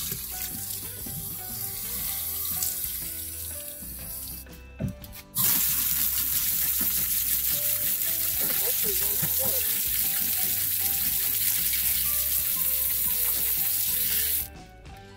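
Sink spray nozzle spraying water onto tumbled stones in a mesh sieve, rinsing off the grit slurry. The spray stops briefly about four and a half seconds in, starts again about a second later, and cuts off near the end.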